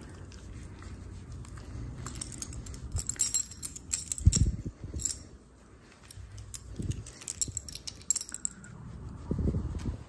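Metal ID tag on a small dog's collar jingling in quick clinks as the dog is petted and moves about, with a few dull thuds.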